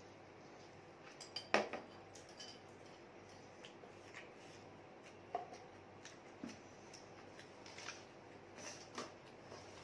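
Scattered faint clinks and taps of a metal spoon against a glass bowl, the loudest about a second and a half in, with eating sounds between them.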